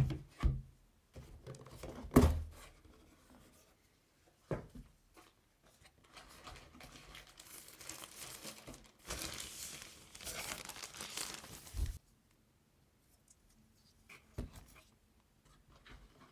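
Packaging being handled and torn open: a few sharp knocks, then about six seconds of tearing and crinkling of paper or plastic wrap that stops abruptly, and another knock near the end.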